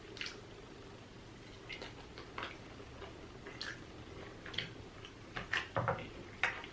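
Close-miked chewing and lip-smacking while eating cheese-covered waffle fries: a run of short, irregular wet clicks, coming thicker about five seconds in.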